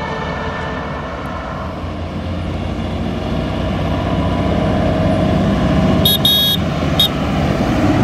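Green John Deere tractor towing a tri-axle grain trailer coming along a road and passing close by, its diesel engine and tyres growing steadily louder. Two short high-pitched toots sound about six and seven seconds in.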